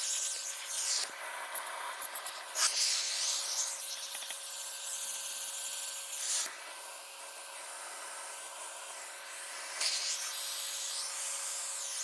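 Shop vacuum running with a steady whine while its brush nozzle is worked over the thin fins of an RV air conditioner's condenser coil; the rush of suction swells and drops as the nozzle moves, with a few sharp clicks about two seconds in.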